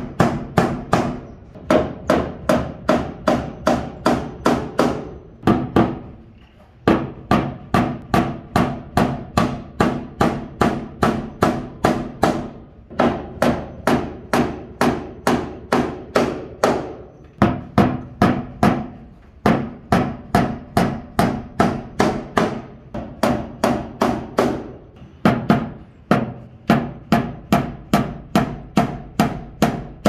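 Claw hammer driving nails up into wooden ceiling boards: fast, even blows, about three or four a second, each with a short ringing tone, in runs broken by brief pauses.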